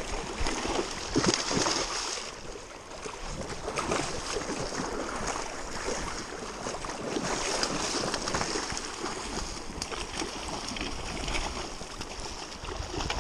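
Fast, shallow river water rushing steadily, with splashes from a hooked sockeye salmon thrashing at the surface and wind buffeting the microphone.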